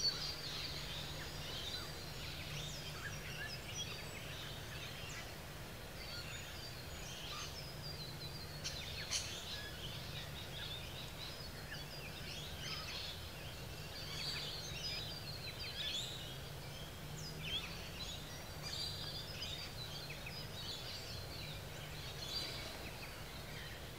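Outdoor ambience of birds chirping and calling, with many short high calls overlapping throughout and a steady low hum beneath.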